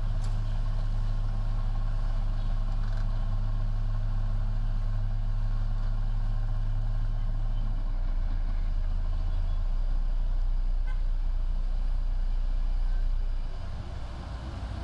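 Heavy earthmoving machine's diesel engine running with a steady deep hum. Its note shifts slightly about eight and ten seconds in, and it gets quieter shortly before the end.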